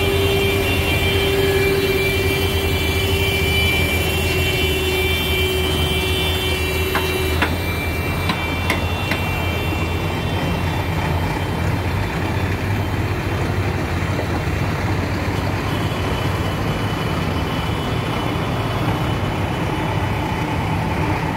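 Vehicle engine running steadily with a low hum throughout. A held tone fades out about seven seconds in, followed by a few light clicks.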